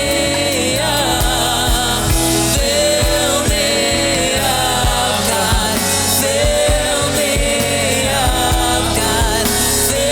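Gospel-style worship music: a sung melody over a steady drum beat with bass and keyboard.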